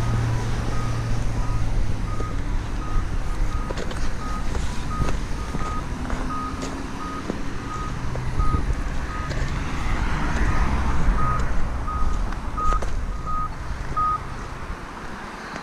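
Polara Navigator accessible pedestrian signal beeping a short high tone about twice a second, its walk indication, stopping about 14 seconds in. Idling and passing traffic runs underneath.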